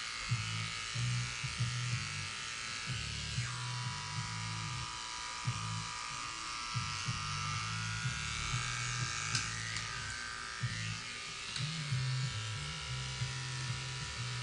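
Corded electric hair clippers buzzing steadily as they shave a head down to stubble. The low hum swells and dips as the blades pass through the hair.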